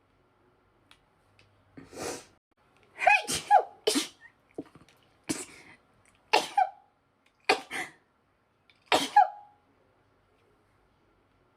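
A woman's sneezing fit: about nine sharp, voiced sneezes in quick succession starting about two seconds in, some coming in rapid pairs, with dead silence between them.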